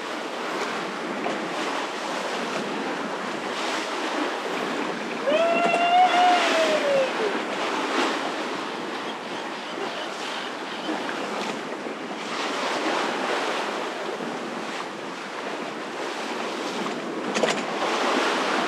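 Sea water rushing and splashing along the hull of a sailboat under way, with wind buffeting the microphone. About five seconds in, a single drawn-out call rises and falls in pitch for about two seconds, and a sharp click comes near the end.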